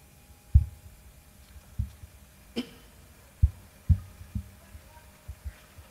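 Handling noise from a handheld corded microphone being moved about: a string of dull low thumps and bumps, about eight in all, one of them a sharper click about two and a half seconds in, over a faint steady hum.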